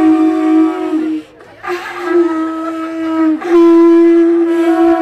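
Several conch shells blown together as horns, held steady honks on one low note. The sound breaks off briefly just after a second in, then resumes and gets louder about halfway through.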